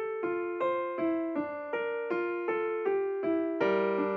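Background piano music: a steady, even run of single notes at about three a second.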